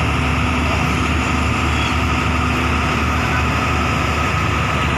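Excavator's diesel engine running steadily with a low rumble.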